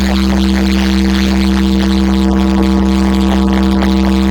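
DJ sound system playing an electronic remix, loud: a steady, buzzing held synth tone over a deep bass drone, with a faint fast pulse.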